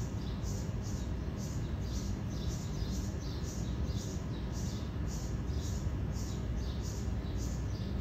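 Honey bee swarm cluster humming steadily. A short high chirp repeats about three times a second over the hum.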